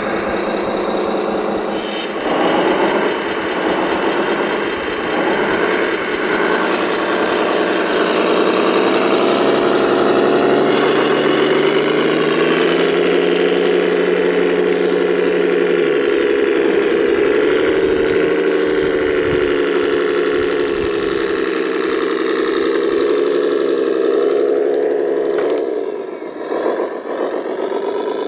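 RC model construction vehicle running, its engine note rising about two seconds in and then holding mostly steady. A short knock sounds near the start and another near the end.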